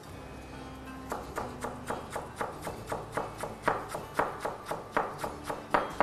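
Chef's knife chopping fresh parsley on a plastic cutting board: a steady run of quick knocks, about four a second, starting about a second in.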